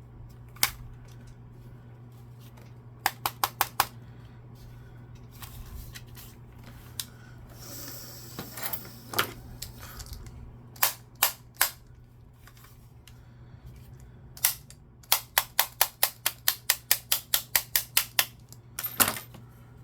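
Xbox One controller being knocked against a hard surface, giving sharp plastic clicks and taps. They come singly, in a quick group of four, and near the end in a fast run of about four a second. It is being banged to try to free a stuck part, and the knocking does not help.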